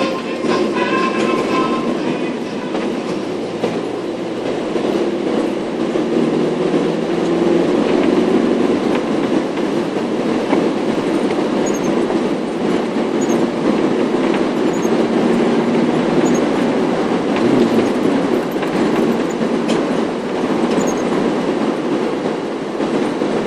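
Steady engine and road rumble heard inside a moving car's cabin, growing a little louder after the first few seconds.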